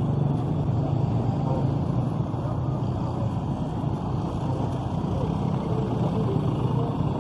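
Several small motorcycles and scooters towing vendor carts, their engines running at low speed as they roll past in a slow line. The engine hum is steady.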